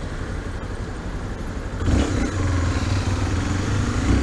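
Honda XRE 300 single-cylinder four-stroke motorcycle engine running at low revs, then opened up about two seconds in and pulling harder as the bike gets under way.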